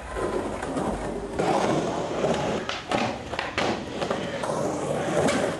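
Skateboard wheels rolling on concrete, with several sharp knocks of the board against the ground and ramp.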